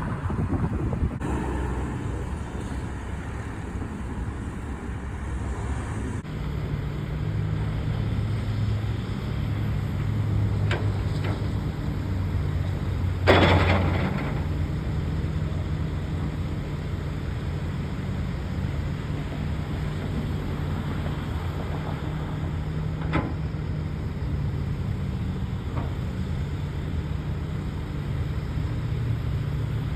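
Heavy diesel construction machinery running steadily with a low engine hum, broken by a few sharp metallic knocks and one loud bang a little before halfway.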